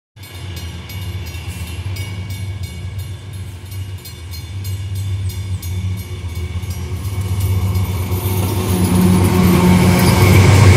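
GE AC44i and Wabtec ES44ACi diesel-electric locomotives hauling an empty ore train, their engines running with a deep steady drone that grows steadily louder as they approach and draw alongside, loudest near the end.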